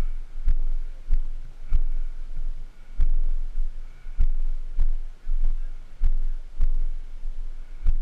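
Footsteps on a dirt trail, carried through the body-worn camera as dull, evenly paced thuds, about three every two seconds.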